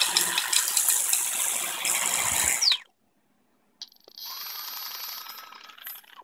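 Small quadcopter-type motor spinning a 3D-printed plastic gear and O-ring belt drive fast, a loud rattling whir. It cuts off abruptly about three seconds in; after a second of silence a click, then it runs again more quietly at lower speed with a steady whine that fades out.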